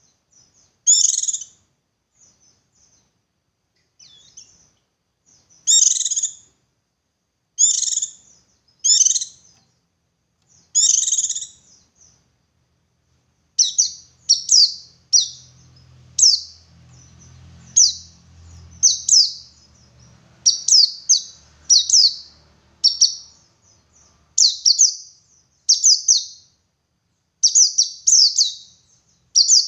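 Pleci buxtoni white-eye singing in the chirpy 'ngalas' style: high, thin chirps in separate clusters. About halfway through they give way to a quicker run of sharp, short falling notes roughly once a second.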